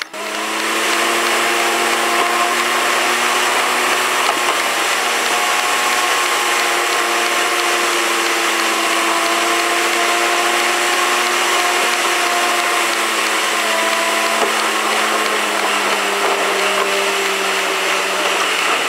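Steady in-cabin drone of a car driving at speed: a constant motor hum with a strong hiss of road and wind noise.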